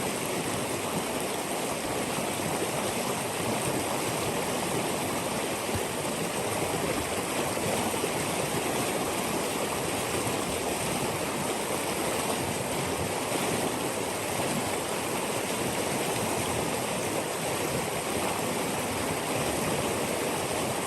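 Steady, unbroken rushing of flowing water, an even hiss with no breaks or changes.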